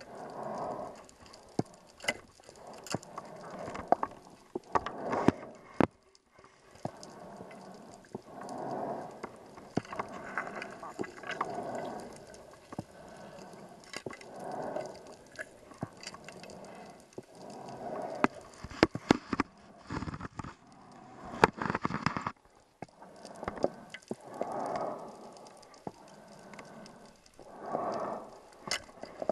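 Scuba diver breathing through a regulator underwater: a breath swells and bubbles out every three to four seconds. Sharp clicks and knocks come in between.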